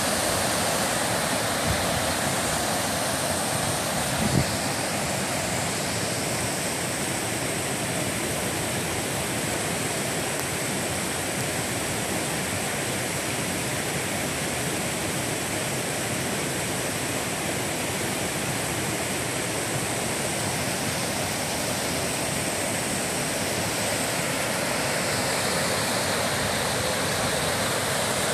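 Small waterfall cascading over stepped rock ledges into a shallow creek: a steady rush of water, with a brief knock about four seconds in.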